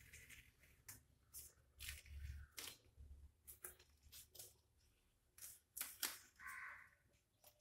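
Masking tape being peeled off paper from around a painting, making faint, short ripping strokes now and then, with a brief high-pitched sound about six and a half seconds in.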